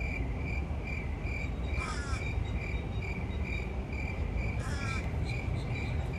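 A high, even tone pulsing about two and a half times a second, with two short, harsh bird caws over a low outdoor rumble.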